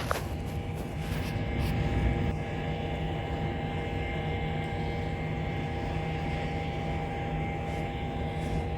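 Air-conditioning equipment running with a steady hum and a few held tones, with light clicks of handling about a second in.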